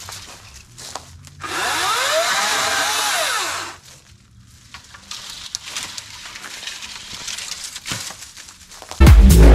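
Ryobi 40V brushless cordless chainsaw's electric motor running for about two seconds, its whine rising and then falling as it ramps up and spins down. Loud electronic dance music starts just before the end.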